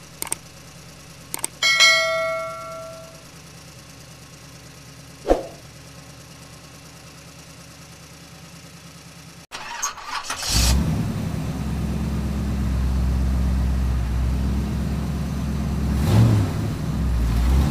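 Faint steady hum with a few clicks and a single bell-like ring about two seconds in. About ten seconds in, a vehicle engine sound comes in and runs steadily at a low, even pitch.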